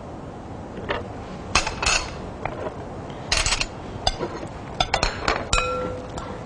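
Kitchen utensils clinking and knocking against plates and a glass bowl while food is served, a scattered run of light clinks with the last one ringing on briefly.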